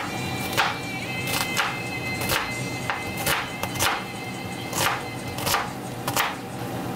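Chef's knife chopping an onion on a paper-covered counter: about ten separate chops, unevenly spaced, over quiet background music.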